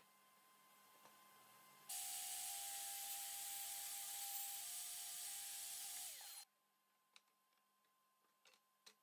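Table saw ripping a wooden board: a steady motor whine under the hiss of the blade cutting, starting suddenly about two seconds in and stopping about four seconds later, its pitch sagging as it cuts off. A few faint clicks of wood being handled follow.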